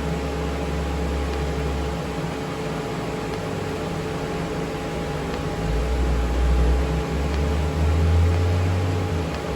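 TIG welder running during DC welding on thin steel: a steady electrical hum and fan noise from the machine, with a low buzz that drops out after about two seconds and comes back louder in steps in the second half.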